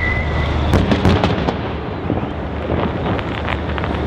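Distant fireworks shells bursting: a cluster of booms about a second in, then a spell of fainter crackling pops, over a steady low rumble.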